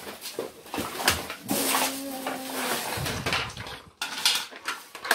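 Plastic packaging crinkling and hard plastic toy parts clattering and knocking as a toy tower is unpacked and handled. A short, steady hum-like vocal tone starts about a second and a half in.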